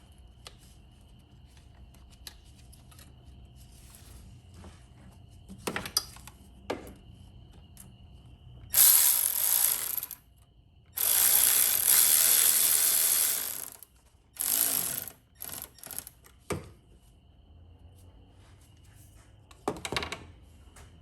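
Handheld power tool running in three short bursts, about 9 to 15 seconds in, driving fasteners during reassembly, with a few sharp clicks and knocks of parts being handled.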